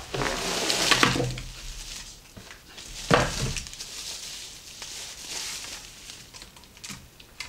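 Cardboard box opened and plastic packaging rustling and crinkling as a ring light is pulled out and unwrapped, with a sharp knock about three seconds in.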